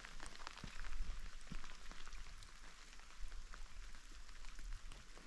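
Light rain falling, faint, with scattered drops ticking at irregular intervals.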